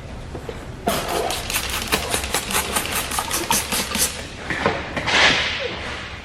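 Squeegee worked over wet paint protection film in quick strokes, making a rapid, even scraping of about seven strokes a second for about three seconds, then a short hiss near the end.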